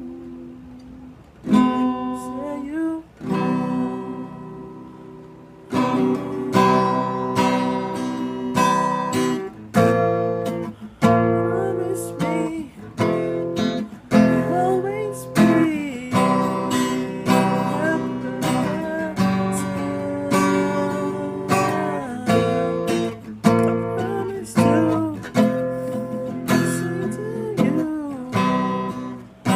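Acoustic guitar strummed in an instrumental passage of a song: a few softer strums at first, then from about six seconds in a steady rhythm of strong strummed chords.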